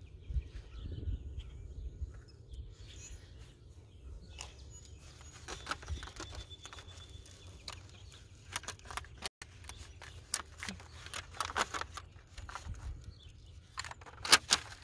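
Hands working potting soil and lemon sedum roots into a plastic saucer planter: short bursts of rustling and crunching, the loudest near the end, over a steady low rumble.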